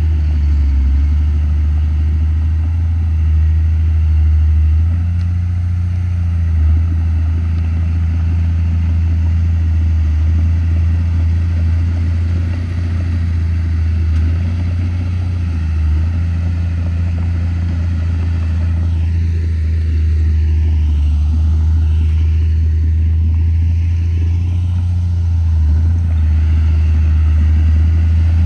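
Komatsu D31P crawler bulldozer's diesel engine running steadily at working revs, with small rises and dips in level as it takes load.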